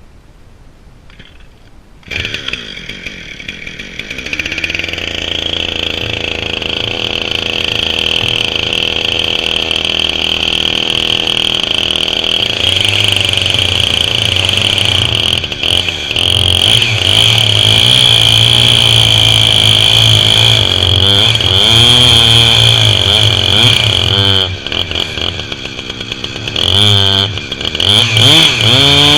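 Chainsaw mounted in a Granberg Alaskan chainsaw mill, running at high revs as it rip-cuts lengthwise through a pine log. It comes in abruptly about two seconds in, builds over the next few seconds, and sags briefly near the end before picking up again.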